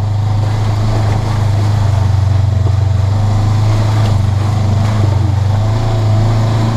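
Polaris RZR 900 side-by-side's parallel-twin engine running at a steady pitch as the machine drives along a trail, heard from inside the cab.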